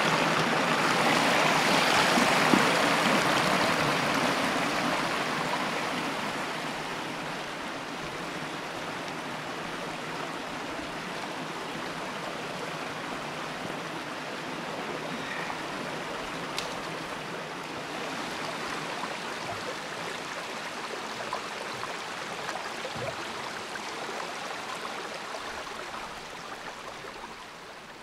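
Shallow rocky stream running over stones and small rapids. It is louder for the first few seconds, then settles into a softer, steady flow.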